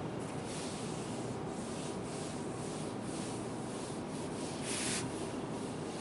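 An eraser rubbing handwritten marker notes off a whiteboard in repeated wiping strokes, with the strongest swipe about five seconds in.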